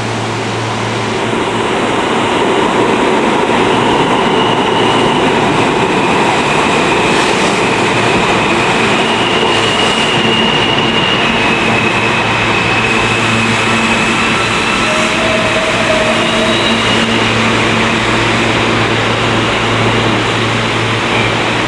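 R160 New York City subway train running into the station: a loud, steady rush of wheel and track noise over a low hum, with thin high squealing tones that come and go through the middle.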